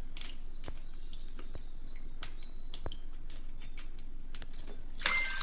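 Faint scattered clicks and short high chirps from a top-load washing machine standing with its lid open mid-cycle. About five seconds in, a louder burst with a short beep sounds: the machine's alert that the lid has been opened during the wash.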